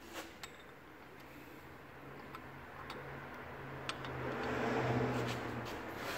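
Scattered light metallic clicks and taps as oil-dipped valve lifters are handled and set into the cylinder head's lifter bores. Under them a low hum swells about four seconds in and eases off near the end.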